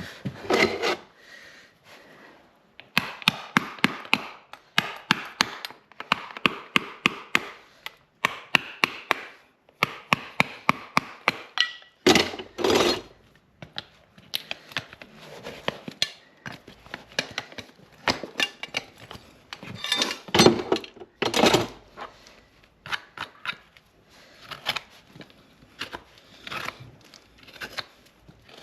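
Farrier's hand tools working a horse's hoof: runs of quick, sharp scraping clicks, several a second, broken by a few louder strokes.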